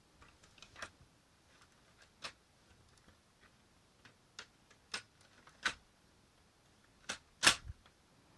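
Irregular sharp plastic clicks and clacks from a Lego pump-action shotgun being worked by hand, with one much louder clack about seven and a half seconds in.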